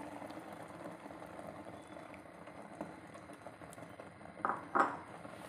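Creamy malai sauce poured into a hot kadhai around fried mutton tikkis, starting to bubble and simmer with a steady soft hiss. Two short louder sounds come near the end.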